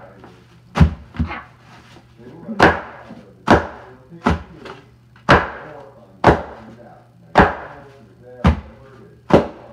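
Inflated plastic air-pillow packing popping underfoot, about ten sharp pops roughly a second apart.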